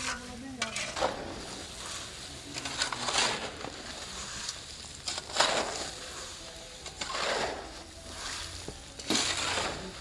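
Woven plastic cement sacks rustling and scraping as they are dragged and handed down from a truck, in about five irregular bursts.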